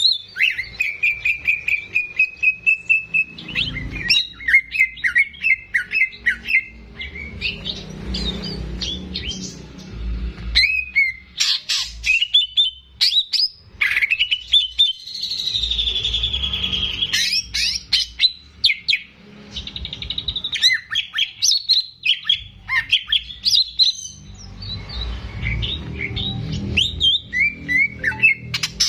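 Green leafbird (cucak ijo) singing vigorously: fast runs of chirps, trills and whistled glides, with one long buzzy note about halfway through, over a low background rumble.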